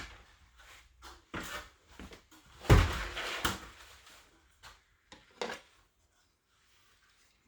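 Plastic roof-rail trim being pressed and snapped onto its clips on a minivan roof: a series of sharp plastic knocks and clicks. The loudest comes about two and a half seconds in and is followed by a second of scraping and rattling.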